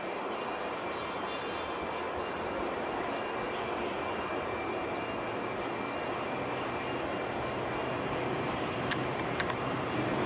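Trenitalia Pop (ETR104) electric train approaching, a steady rolling rumble with a low hum that grows louder over the last few seconds. Two sharp clicks sound near the end.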